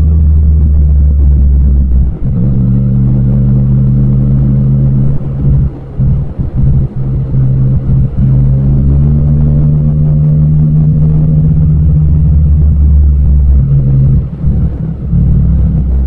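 Yamaha MT-09 motorcycle's inline three-cylinder engine and exhaust running at steady throttle on the move, with a step in pitch about two seconds in. The throttle is rolled off and back on, breaking up the sound, about five to eight seconds in and again near the end.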